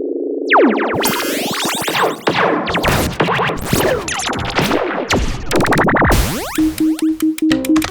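Synthesized sci-fi sound effects in quick succession. A steady electronic buzz breaks into a steep falling sweep about half a second in. Dense swooping pitch glides and noisy zaps follow, and a quick run of short, even beeps comes near the end.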